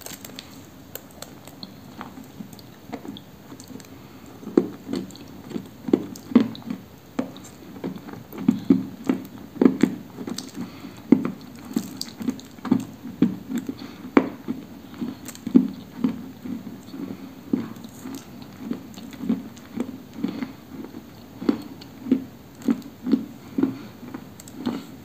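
Dry, soft orange-yellow 'Apricot' clay being bitten and chewed close to the microphone. Crisp crunches come at about two a second, fainter for the first few seconds.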